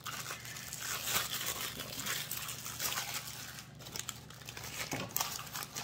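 Newspaper packing paper crinkling and rustling in irregular bursts as wrapped items are handled and put back into a cardboard box.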